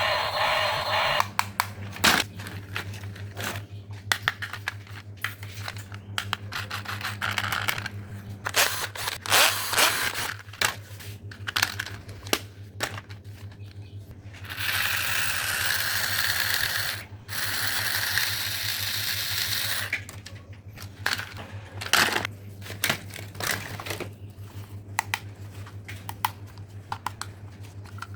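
Hands rummaging through old plastic toys: irregular clicks, clacks and scrapes of hard plastic pieces knocking together. Past the middle there are two stretches of steady hiss, each a few seconds long.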